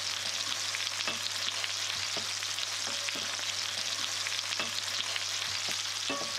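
Rabbit pieces frying in hot lard in a pan: a steady sizzle with small pops and crackles scattered through it.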